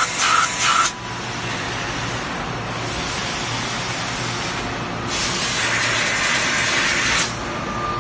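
Machine-shop noise: a steady hiss, with a louder burst of hissing, like compressed air or spray, for about two seconds near the end. A rhythmic pulsing, about three beats a second, stops about a second in.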